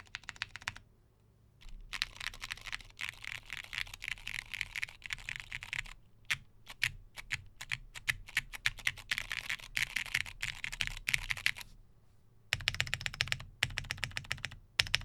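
Typing on a Monokei x TGR Tomo mechanical keyboard with lubed Hyperglide Cherry MX Brown tactile switches, a top-mounted polycarbonate plate and PBT Cherry-profile keycaps: fast runs of keystrokes. The runs break off briefly about a second in and again near the end, and the last strokes come louder and fuller.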